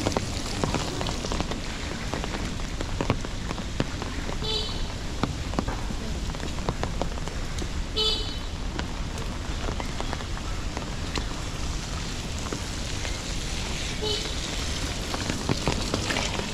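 Steady rain falling on the street, with many scattered raindrop taps. Three brief, high-pitched toots are spread through it.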